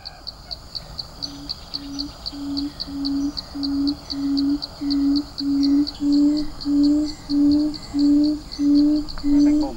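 A buttonquail's low hooting call: a steady series of short hoots, about two a second, that starts about a second in and grows steadily louder. A rapid, even high ticking from an insect runs behind it.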